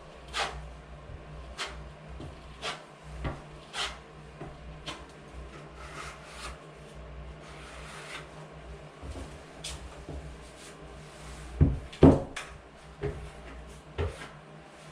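Irregular knocks and clatters of hard objects being handled and set down, a few a second at most, with two louder knocks about two-thirds of the way through.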